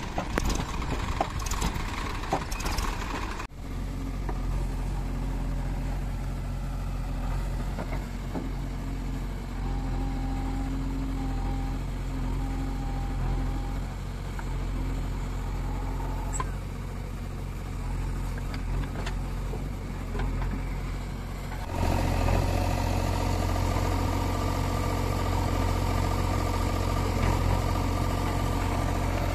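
Diesel engines of farm tractors and a JCB 3DX backhoe loader running steadily, with a few knocks in the first seconds. The engine sound changes abruptly about four seconds in and again about seven seconds before the end, where it becomes louder and deeper.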